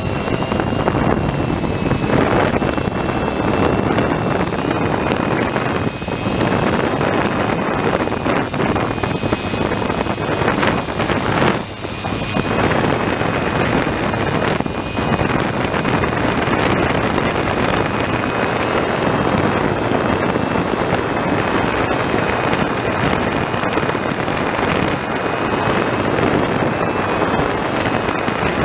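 Multirotor drone's electric motors and propellers running in flight, a steady high whine over rushing wind noise, heard from the camera mounted on the drone.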